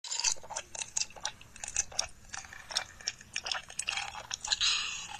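Mukbang eating sounds: someone chewing crunchy food close to the microphone, with many crisp, irregular crunches and mouth clicks, and a denser crackle of crunching about four and a half seconds in.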